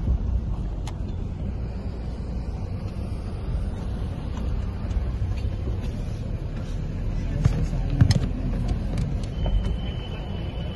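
Road noise of a moving car, heard from inside the cabin: a steady low rumble. A few knocks come about 7 to 8 seconds in, the loudest near 8 seconds, and a thin high tone starts about 9 seconds in and holds.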